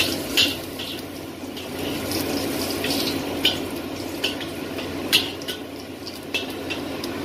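A few small pieces sizzling in a little hot oil in a black wok, stirred with a metal spatula that scrapes and clicks sharply against the pan about once a second. A kitchen extractor hood fan runs steadily underneath.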